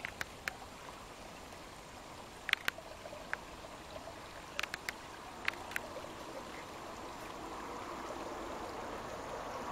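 Shallow stream trickling steadily, growing a little louder near the end, with a scattering of short sharp clicks over it.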